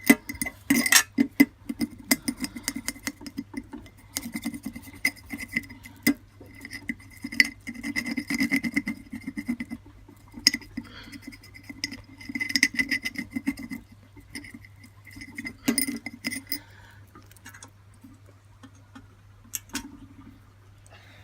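Small metal clinks, taps and scraping as a soldering iron and hand tools work on small copper pieces while tinning them with solder, in clusters that thin out near the end. A steady low hum runs underneath.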